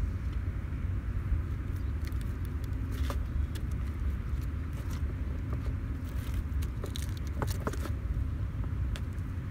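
Steady low rumble of wind buffeting the microphone, with scattered light clicks and ticks from a spinning reel as a jig is worked and reeled in.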